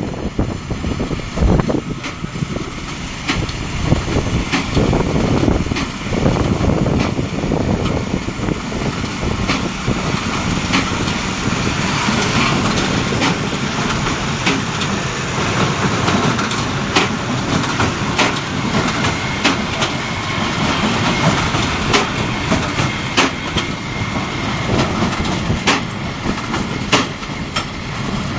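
New Holland T7.245's 6.7-litre six-cylinder diesel working under load while driving a New Holland BigBaler 890 large square baler, with a steady mechanical clatter and many sharp clicks and knocks from the baler throughout.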